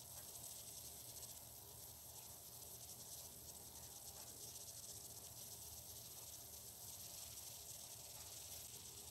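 Near silence: a faint, steady hiss with a low hum beneath it.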